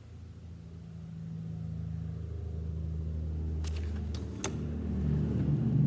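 A low, steady rumble that grows louder, with three sharp clicks a little past halfway.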